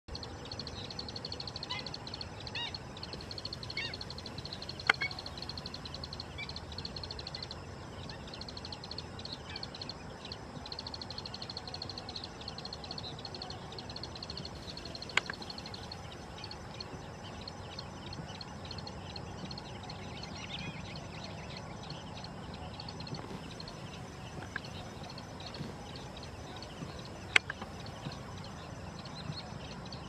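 Wetland ambience. Small birds chirp here and there over a steady, high, pulsing trill that fades out about halfway through. Three sharp clicks come at spread-out moments.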